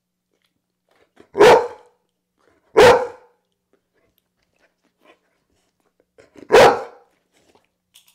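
A dog barking three times, single loud barks: two a second and a half apart, then a third about four seconds later. They are barks the dog offers while waiting for a treat held out to it during clicker training.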